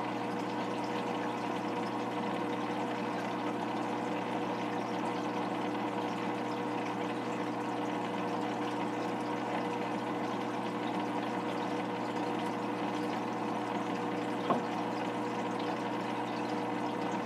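Aquarium filter pump running with a steady hum and a wash of moving water. There is one small click late on.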